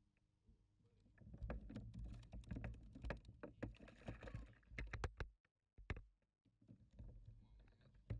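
Handling noise aboard a plastic kayak: a quick run of small knocks, taps and clicks as gear and the catch are handled, thinning out after about five seconds.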